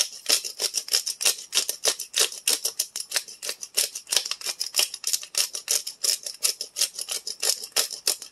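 Pepper grinder being twisted to crack black peppercorns, a fast, even run of short gritty clicks at about six a second.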